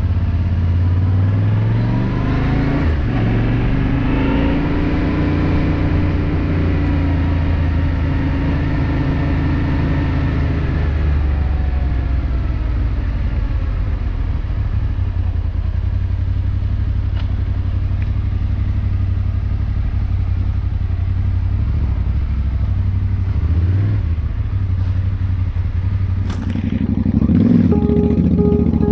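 Yamaha Ténéré 700 parallel-twin engine running on the move. Its note rises a few seconds in and falls away about ten seconds in. Music comes in near the end.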